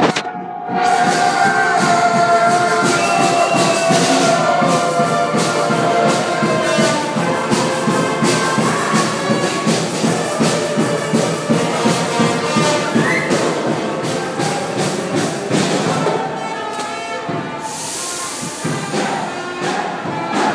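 Brass-band music with a tambourine over a steady beat, dropping somewhat in level near the end.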